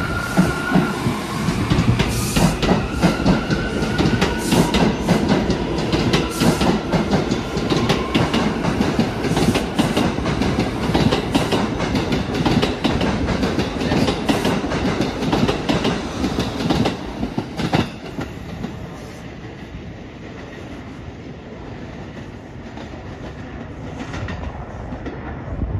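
R179 subway train pulling out and running past, its wheels clattering over the rail joints, with a high whine that dies away in the first second. About 18 seconds in the clatter drops off and grows quieter as the train moves away.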